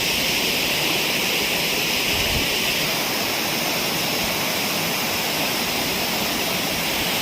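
Mountain river water rushing steadily, a loud even rush of flowing water with no breaks.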